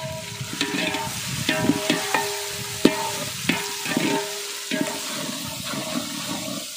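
A long-handled metal ladle stirs and knocks against a large aluminium pot of onions frying in oil. The pot rings after the harder knocks, over a steady sizzle. The knocking thins out near the end.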